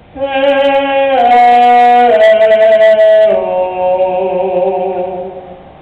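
Operatic tenor singing a long, held phrase with no words in between: three sustained notes, each a step lower, then a softer held note that dies away near the end.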